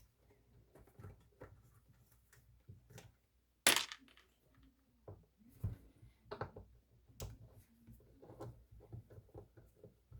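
Small metal parts of a Binson Echorec echo unit being handled during disassembly: scattered light clicks and clinks of screws and cover, with one sharp clack about four seconds in and a few more knocks later on.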